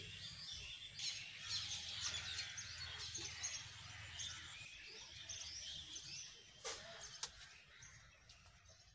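Birds chirping in a busy chorus over a steady low rumble, with two sharp clicks about seven seconds in; the sound fades toward the end.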